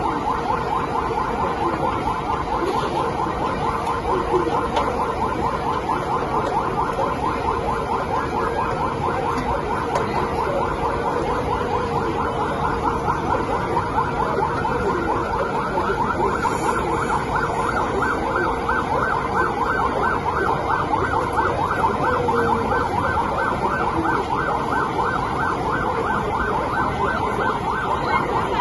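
Police vehicle siren in a fast yelp, its pitch rising and falling several times a second without a break.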